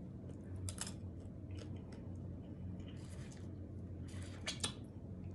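Snow crab leg shells being broken open: a few short, sharp cracks and crunches, the loudest pair about four and a half seconds in.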